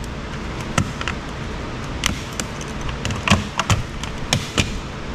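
Scattered clicks and light knocks of metal and plastic, about ten in all and unevenly spaced, as a screwdriver pries the aluminium heat shield loose from an Apple Wi-Fi unit's plastic housing on a steel workbench. A steady low hum runs underneath.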